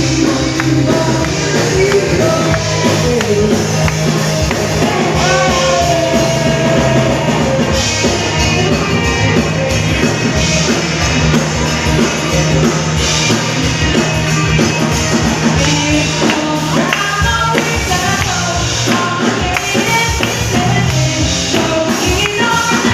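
Loud music with a singer over drums and bass, playing on without a break.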